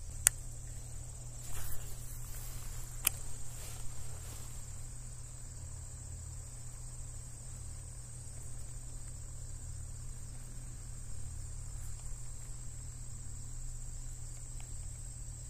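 Steady high chirring of crickets over a low steady hum, with a couple of sharp clicks in the first few seconds.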